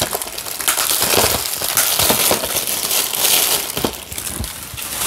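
Clear plastic shrink wrap crinkling and crackling as it is peeled off a DVD case by hand, with small clicks of the plastic case being handled.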